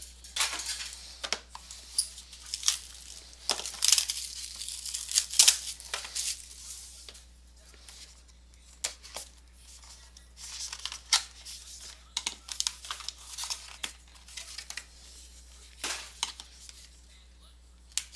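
Cardboard trading card box being opened: scissors cut through its seal amid irregular rips, crinkles and sharp clicks of packaging, busiest in the first six seconds and again later.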